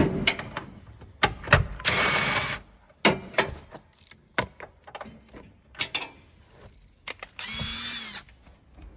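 Cordless drill-driver running in two short bursts, one about two seconds in and one near the end, backing out the bolts of the hybrid battery's cover. Sharp clicks and metal clanks of hand tools and panels fall between the bursts.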